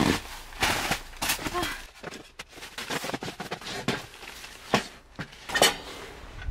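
Rustling and scattered sharp knocks of camping gear being handled and set down on a tent groundsheet, as a wooden table and a metal heater are moved.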